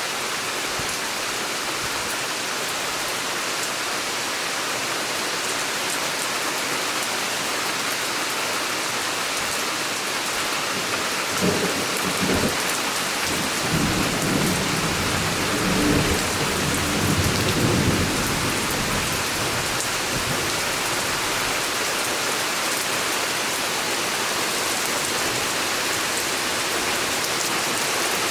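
Steady summer rain pouring down, with a roll of thunder rumbling for about six seconds midway.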